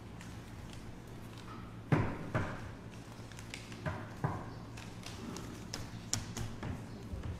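Scattered knocks and taps on a meeting table, with paper and pen handling, over a steady low hum. The loudest knock comes about two seconds in, with a few lighter ticks after it.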